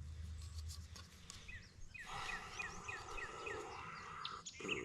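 Outdoor ambience with a songbird singing a run of about seven quick down-slurred notes, over steady background noise.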